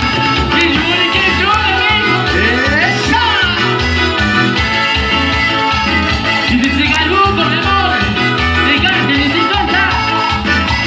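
A band playing Latin dance music live, with a steady pulsing bass beat and melody lines gliding above it.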